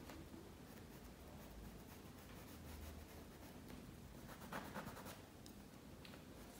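Faint scratching of a paintbrush working acrylic paint onto a canvas, with a few slightly louder strokes about four and a half seconds in.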